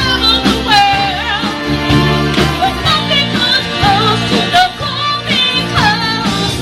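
Live band playing a rock and pop song with a singer sliding through long, gliding sung notes over the band and drums.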